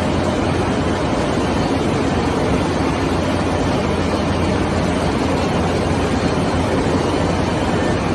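Welding wire production machinery running: a steady, unchanging drone with a low hum underneath.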